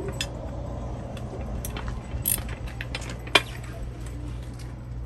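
Scattered sharp metallic clinks and taps of bolts and tools being handled on an RV stabilizer jack, one louder clink a little past the middle, over a steady low hum.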